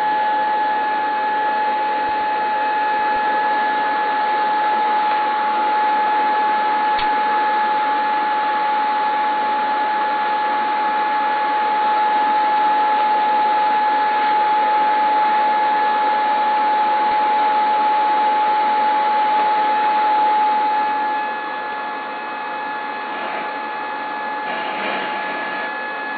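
Chrysler car radio playing off-station static: a steady hiss with a high steady whistle running through it. It is tuned to 530 kHz AM, where there is no station. The level drops a little about 21 seconds in.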